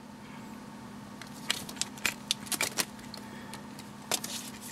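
Scattered small clicks and taps of a pair of sunglasses being handled and turned over in the hands, starting about a second in, over a faint steady hum.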